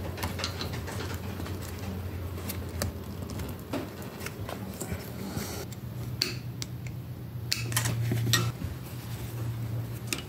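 Scattered light metallic clicks and clinks of a screwdriver against the small-engine oil pump and its bolt while the oil line is worked on, over a low steady hum.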